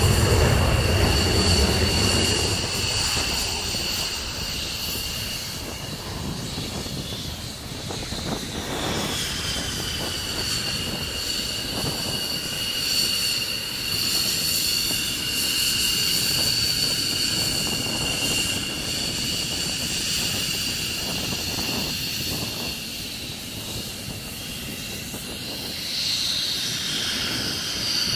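Jet fighters taxiing close by: the steady high whine of their turbofan engines at taxi power, over a low rumble. It is loudest at the start as one jet passes close, and swells again near the end as the next one comes up.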